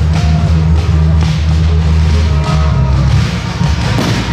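Loud music with a heavy bass line, and one sharp firework bang near the end.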